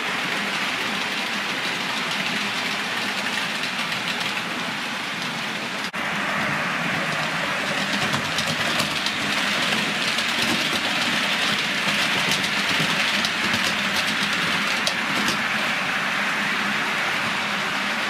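Model electric locomotive and its train running along model railway track: a steady whirr of motor and wheels with light clicking, louder through the middle as the train passes. A brief break comes about six seconds in.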